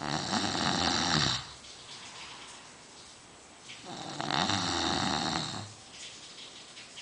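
A man snoring in sleep: two long, rasping snores that sound like a saw, one at the start and another about four seconds later, with quieter breathing in between.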